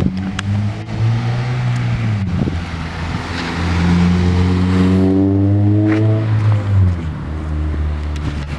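Car engine revving: a short rise and fall in pitch, then a longer climb that holds for a few seconds and drops back to a low idle near the end.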